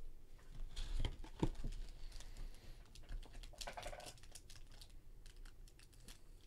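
Trading-card hobby box being handled and opened on a table: scattered light taps and clicks of cardboard, a soft knock about a second in, and a short crinkle of foil card packs near the middle as one is drawn out.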